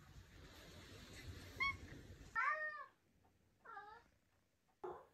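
Maine Coon cats meowing: a brief high call about one and a half seconds in, then a louder, rising-and-falling meow and a shorter, lower one.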